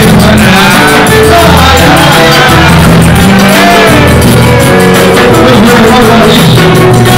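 Live pagode: acoustic guitar and pandeiro playing a steady samba rhythm under group singing, loud.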